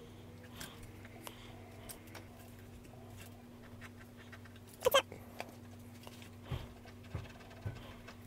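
Faint scraping and ticks of a coin scratching off a scratch-off card, then, about five seconds in, a pet's short high-pitched cry, given twice in quick succession.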